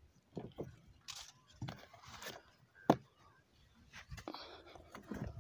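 Handling noises around a plastic knapsack sprayer: scattered scrapes and crunches, with one sharp click about three seconds in.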